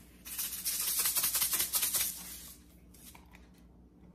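Sea salt being shaken out of its container into the pot: a fast, dry rattle that lasts about two seconds and then stops.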